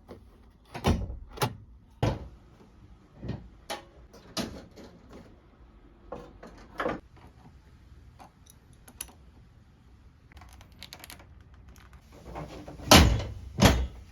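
Irregular knocks and clicks, a dozen or so spread out, with two loud thumps close together near the end.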